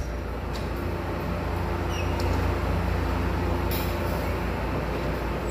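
Steady low rumble of shipboard machinery, with one short metallic knock from the watertight door's hardware about three and a half seconds in.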